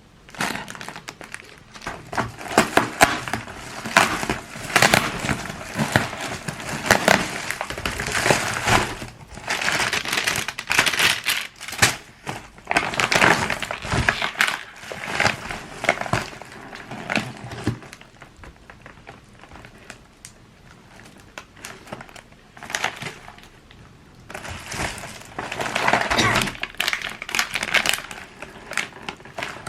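Packaging crinkling and rustling as it is handled, in bursts of dense crackles and sharp clicks, dying down in the middle and picking up again near the end.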